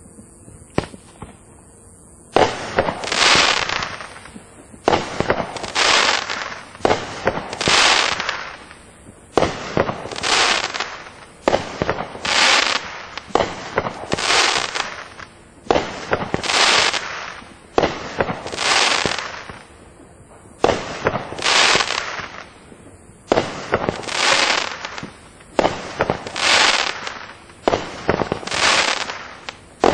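A 200-gram, 16-shot consumer fireworks cake (Winda 'Avalanche') firing its shots one after another, roughly one every second or two, each a sharp bang that trails off over about a second. The shots start after about two seconds of faint hiss.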